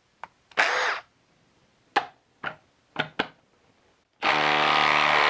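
A few light clicks and knocks from handling the tool, then about four seconds in a Milwaukee M18 Fuel impact driver starts hammering steadily, driving an 8-inch lag bolt into a tough hardwood stump.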